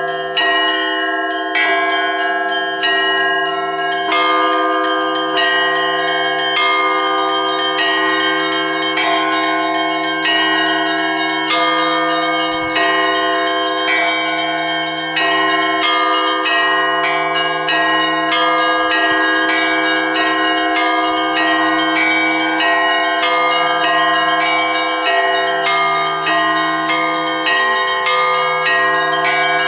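Russian church bells ringing a full peal (zvon): the deep bells hum on continuously while smaller bells are struck over them in a quick, steady rhythm.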